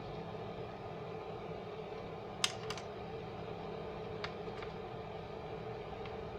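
A few light, sharp clicks and taps, like small tools or glass pieces touching at a stained-glass soldering bench, over a steady low hum. The loudest click comes about two and a half seconds in.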